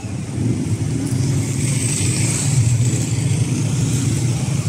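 Road traffic at a city intersection: cars and motorcycles pulling away and passing, a steady low engine rumble with tyre hiss that grows louder about half a second to a second in.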